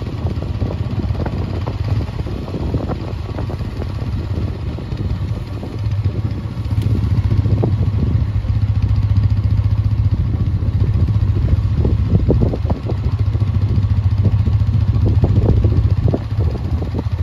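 Engine of a moving vehicle running steadily with a low hum, heard from on board; the hum gets louder about six seconds in.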